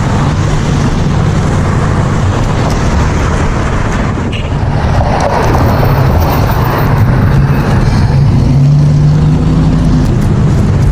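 Motorcycle engine running steadily while riding on a road, with wind rush and passing traffic; the engine note rises a little about eight seconds in.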